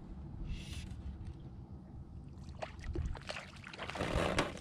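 Fly line being stripped in by hand, a short hiss of line through the rod guides about half a second in, over a steady low rumble. In the second half come a run of sharp clicks and splashy water noise, loudest near the end, as a small trout is brought up beside the boat.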